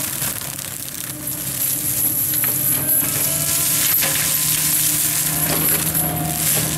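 FAE forestry mulcher head on an excavator arm shredding bamboo grass and brush: a steady hum and high whine from the machine, with sharp clicks and cracks of stalks and debris struck by the rotor. The loudness dips briefly about a second in, then picks up as the head bites into the growth.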